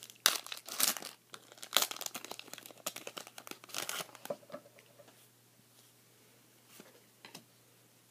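Foil wrapper of a Pokémon Legendary Treasures booster pack crinkling and tearing as it is ripped open and the cards are pulled out; the crackling stops after about four and a half seconds, leaving only a few faint ticks.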